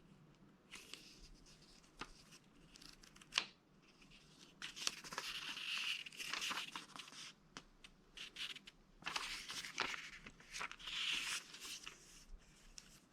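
Smartwatch packaging being opened by hand: papery rustling and tearing in two longer stretches, with scattered clicks and one sharp click about three seconds in.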